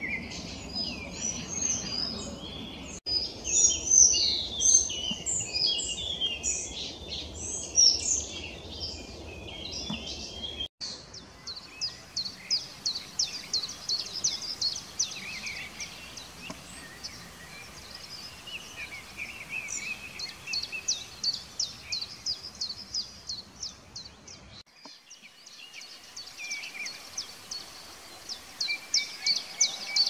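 Songbirds singing and calling in spring woodland. A busy mix of overlapping high chirps and phrases gives way after about ten seconds to long runs of rapid, evenly repeated high-pitched ticks and chirps.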